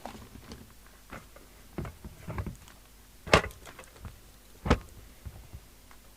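Several short clunks and knocks of equipment being handled on a workbench, the two loudest about three and a half and nearly five seconds in.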